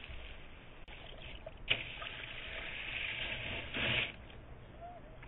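Kayak paddle strokes splashing in lake water, with water washing along the hull. There is one sharp knock about a second and a half in, and a louder splash just before four seconds.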